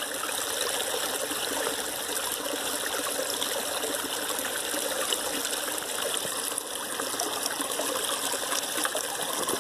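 Small rocky creek trickling, a steady water sound with no distinct splashes.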